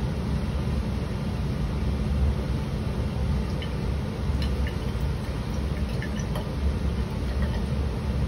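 Steady low rumble of a laboratory fume hood's exhaust airflow, with a few faint clicks of a glass stirring rod against a test tube as the mixture is stirred.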